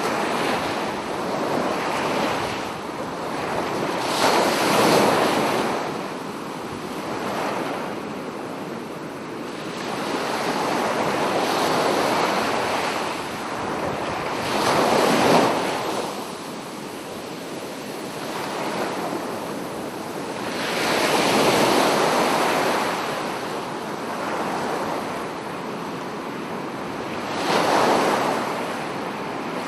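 Ocean waves breaking on a beach: a steady wash of surf that swells into a louder crash and falls away again every several seconds.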